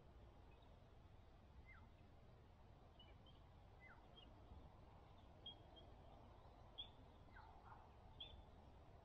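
Near silence: faint outdoor ambience with scattered bird calls, a few quick downward-sliding chirps and some short higher notes.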